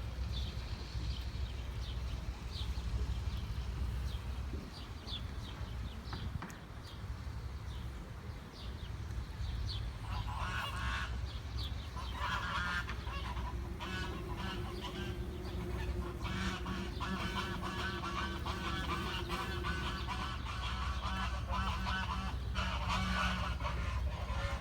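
Farm poultry calling over a steady low rumble: faint short chirps at first, then repeated loud calls from about ten seconds in, with a longer run of calls near the middle.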